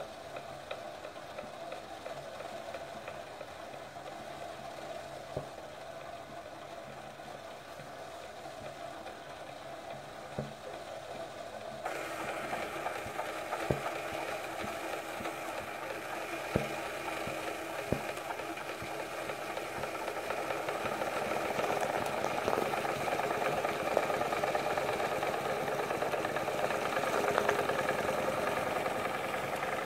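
Homemade single-cylinder steam engine running steadily, with a few sharp clicks. About twelve seconds in the sound turns abruptly louder and brighter, then grows slightly toward the end.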